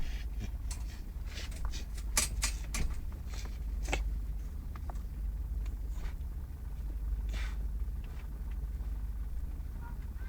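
Steady low engine rumble of a vehicle heard inside a parked car, with a scattered run of sharp clicks and knocks in the first four seconds and one short breathy burst about seven seconds in.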